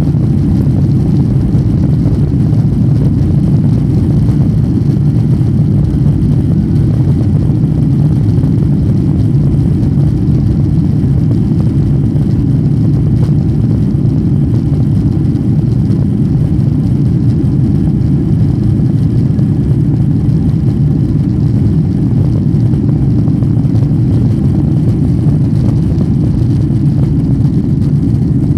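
Boeing 777-300ER's GE90 engines at takeoff thrust, heard from inside the cabin during the takeoff roll as a loud, steady, deep rumble.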